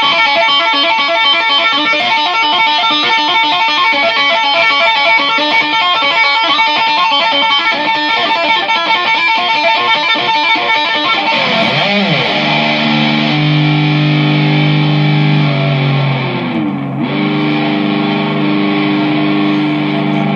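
Electric guitar music: fast, repeating picked notes, then about twelve seconds in the pitch swoops down and back up into held low notes, with a second swoop near seventeen seconds.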